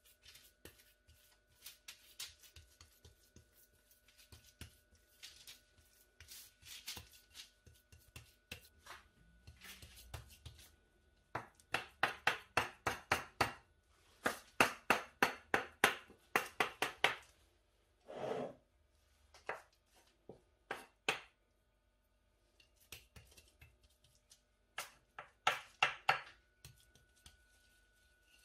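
Metal spatula pressing and scraping through a flattened layer of minced meat on baking paper, in quick runs of sharp strokes about five or six a second as it scores lines across the meat, with softer scraping between the runs.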